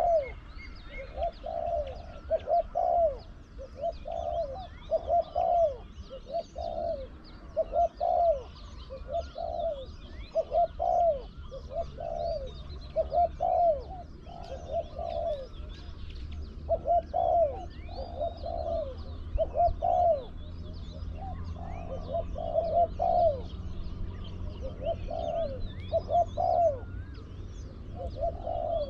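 Spotted dove cooing over and over in short phrases of a few deep coos each, with brief pauses between phrases. Small birds chirp faintly in the background.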